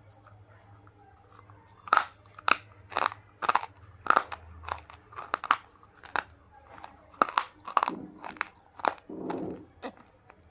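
Close-miked crunching of hard, dry pink bars being bitten and chewed: a quick, irregular run of sharp dry crunches that starts about two seconds in and goes on until near the end.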